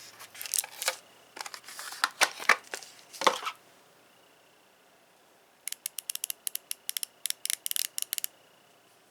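Rustling and knocking as a hand-held tool is handled. After a short pause comes a quick, even run of sharp clicks lasting about two and a half seconds: a 90-tooth Icon 1/4-inch ratchet with a comfort grip being spun against its pawl.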